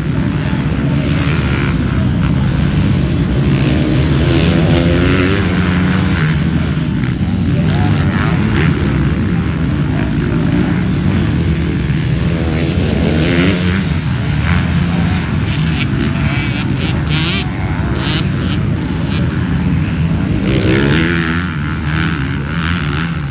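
Several MX2-class motocross bikes racing, their engines revving up and dropping back as they go through the track, with a few sharp clicks around the middle.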